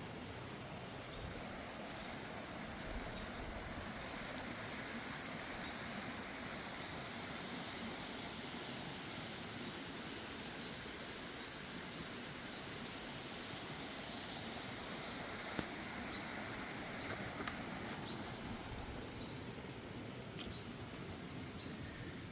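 Steady outdoor background noise, an even hiss with a few faint clicks.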